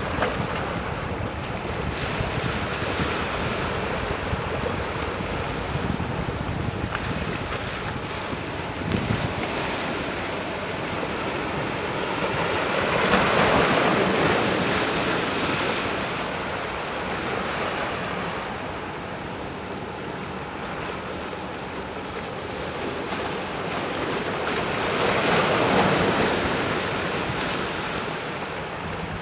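Waves washing in, surging up about halfway through and again near the end, over steady wind noise on the microphone.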